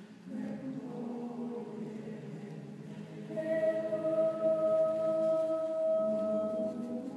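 A choir singing sustained chords. About three and a half seconds in, the singing swells and a high note is held steady for about three seconds over the lower voices.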